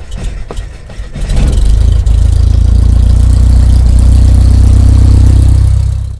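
A loud, steady low engine hum that builds about a second in, holds, and cuts off suddenly near the end.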